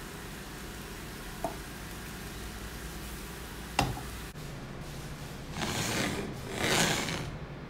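Wooden spatula scraping and rubbing in a frying pan at a burnt, stuck banana-and-egg pancake, over a steady hiss. A sharp knock comes about four seconds in, then two longer, louder scrapes near the end.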